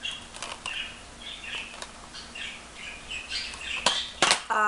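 Handling of plastic Blu-ray cases: two sharp clacks about four seconds in, over a run of faint, short high chirps. A pitched, voice-like call begins right at the end.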